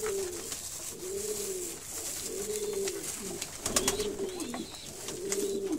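Domestic pigeons cooing: a run of about five rising-and-falling coos, roughly one a second, with a few short clicks among them.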